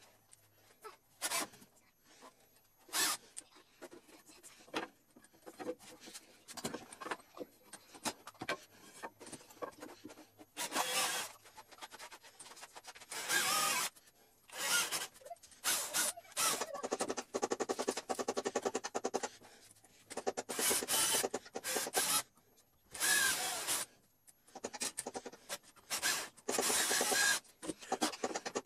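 Cordless drill boring holes into a wooden strip, run in repeated short bursts of a second or two with pauses between.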